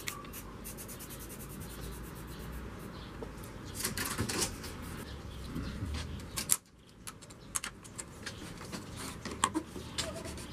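Clicks, taps and plastic rustling from a twin-wall polycarbonate sheet being handled and worked at its edge against a timber frame, with a sharp knock about six and a half seconds in.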